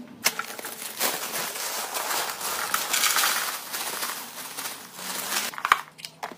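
Cornflakes pouring from a plastic bag into a clear plastic cereal canister: a dense dry rustle of flakes with the bag crinkling. Near the end, a couple of sharp clicks as the canister's plastic lid is handled.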